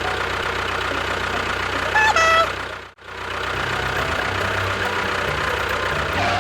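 Tractor engine running at a steady idle, with a short high pitched sound about two seconds in. Near the middle the sound cuts out for an instant, then the engine carries on with a deeper rumble.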